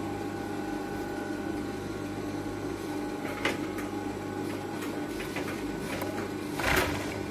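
Steady electric hum of a sewing machine's motor (the serger she is working on), with a few light clicks in the second half and a short rustle near the end.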